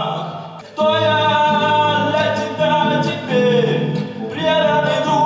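A song with singing over instrumental backing. The music dips briefly under a second in, then picks up again.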